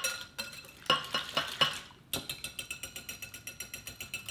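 Wire whisk beating a wet oat, milk and egg batter in a glass bowl, its wires clinking against the glass: a few scattered clinks at first, then from about two seconds in a fast, even run of clinks, several a second.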